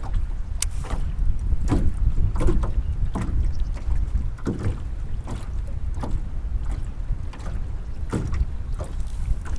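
Wind buffeting the microphone as a steady low rumble, with scattered short knocks and clicks from gear in a small boat.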